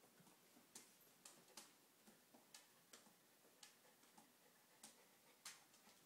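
Faint, irregular sharp clicks and taps, about one or two a second, from a small dog's claws on a vinyl kitchen floor as a Jack Russell terrier shifts its feet while mounting another dog.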